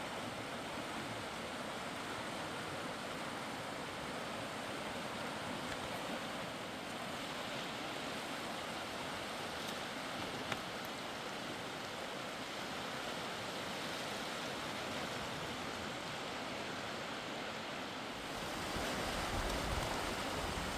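Mountain river water rushing steadily. About 18 s in it grows louder and fuller, and there is a single faint tick around the middle.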